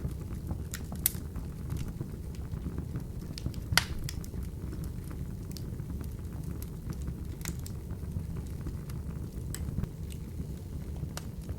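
Open wood fire in a fireplace crackling, with scattered sharp pops over a steady low rumble of the flames. The loudest pop comes about four seconds in.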